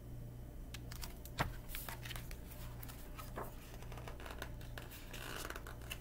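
Rustling and clicking of a picture book being handled and its pages turned, with one sharp knock about a second and a half in, over a steady low hum.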